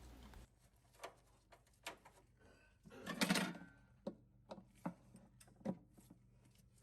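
A few faint, scattered clicks and knocks, with a longer scrape or bump about three seconds in.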